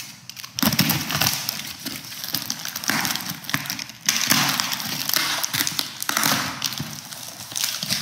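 Utility knife slitting plastic packing tape on a cardboard box, the tape crackling and tearing and the cardboard scraping and rustling as the flaps are pulled open, in long rasping stretches broken briefly near the start and about halfway.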